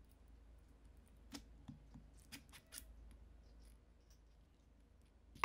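Faint clicks and ticks of the inkle loom clamp's small metal hardware (bolt, washer and wing nut) being handled and fitted into its wooden block, a handful of them scattered through the middle. A sharp, louder knock comes right at the end.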